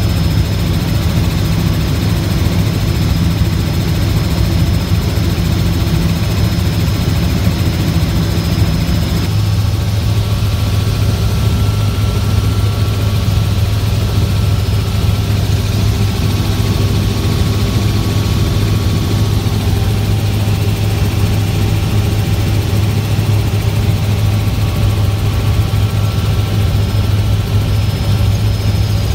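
Small helicopter's engine and rotors heard from inside the cabin in flight: a loud, steady low drone with a hiss above it. The pitch balance of the drone shifts slightly about nine seconds in.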